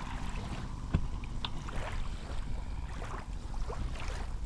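Wind and water around an inflatable dinghy, with a knock about a second in and a few light clicks as the Tohatsu outboard's cowling is released and lifted off.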